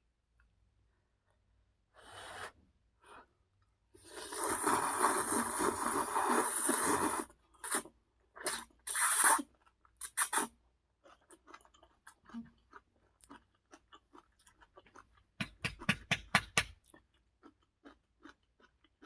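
Close-miked eating of a bite topped with kimchi: a loud noisy stretch of about three seconds, then sharp crunches and quick, wet chewing clicks, with a fast run of crunchy chews near the end.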